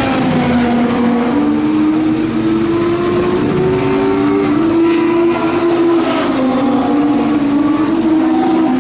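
Racing motorcycle engines running loud and continuous, their pitch climbing slowly and stepping back down several times.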